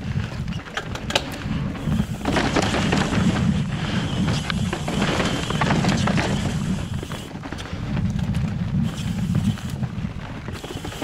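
Wind rumbling on the microphone while a mountain bike rolls over rough rock, with rattles and sharp clicks from the bike. The rolling noise is louder from about two seconds in and eases off near the end.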